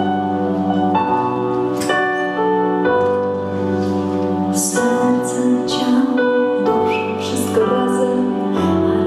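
A woman singing a slow song into a handheld microphone over instrumental backing with keyboard. She holds long notes, with the hiss of sung consonants now and then.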